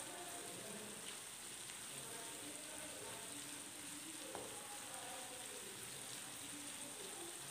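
Chopped onions frying in oil and butter in a nonstick pan, a low steady sizzle, stirred now and then with a wooden spatula.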